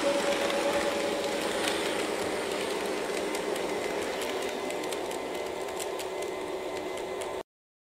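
HO-gauge model train cars running past on the layout track: a steady rolling noise with scattered sharp ticks as the wheels cross rail joints and points. It cuts off suddenly near the end.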